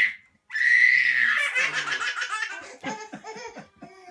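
Baby laughing: a high, held squeal, then a run of quick belly-laugh pulses trailing off into shorter chuckles.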